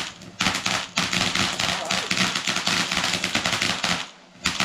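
Fireworks crackling: a rapid, continuous string of small sharp bangs like a machine-gun rattle, with a short lull just after the start and another near the end.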